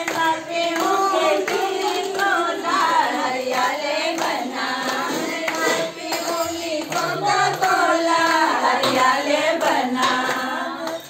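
A group of women singing a traditional Rajasthani wedding folk song together, with hand clapping.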